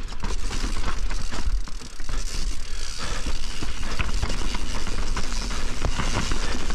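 Privateer 161 enduro mountain bike descending a rough, damp trail at speed: tyres rolling over dirt and rocks, with frequent sharp knocks and rattles from the bike over bumps and a steady low rumble underneath.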